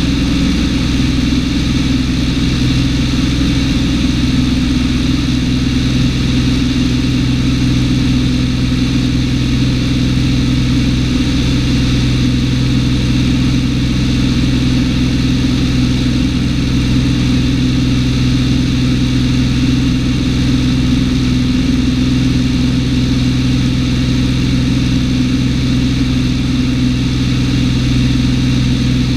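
Cessna 210's six-cylinder piston engine and propeller droning steadily in flight, an unchanging low hum with no change in pitch or power.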